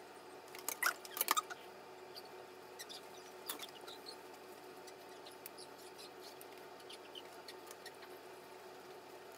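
A flat iron being clamped and drawn through straightened hair: soft rustling and light clicks, with a cluster of clicks about a second in and another near the middle, over a faint steady hum.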